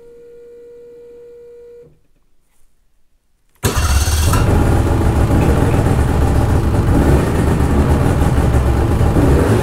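A steady beep for about two seconds. Then, about three and a half seconds in, the Ski-Doo snowmobile's engine electric-starts at once and keeps running. It is a strong cold start at about minus 20 on a lithium battery left uncharged for over a year.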